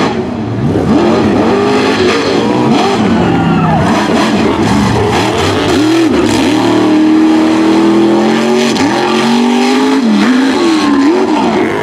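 Mud-racing truck engines revving hard, the pitch climbing and falling again and again as the trucks are throttled through a mud pit.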